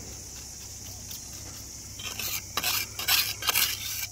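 Steel trowel scraping and smoothing wet flexible pointing compound onto a concrete ridge cap tile: a run of short, rough scrapes starting about halfway through.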